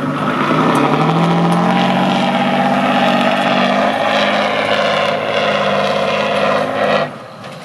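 Off-road 8x8 trial truck's diesel engine working hard at high revs. Its pitch rises a little about a second in and then holds steady, and the sound cuts off abruptly near the end.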